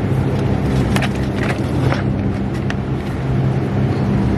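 Shopping cart rolling across a store floor: the wheels rumble steadily and the cart rattles a few times in the first couple of seconds, over a constant low hum.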